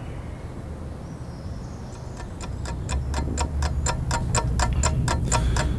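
Rapid, even mechanical ticking, about four to five ticks a second, starting about two seconds in and growing louder, over a low hum.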